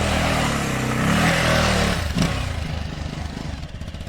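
Motorcycle engine revving up and down, loud for about two seconds, then dropping away and fading.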